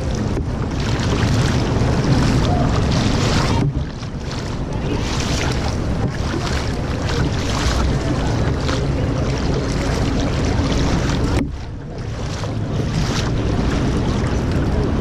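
Wind buffeting the microphone on a kayak, a loud rushing noise heavy in the low end, with two sudden drops, about four seconds in and near twelve seconds.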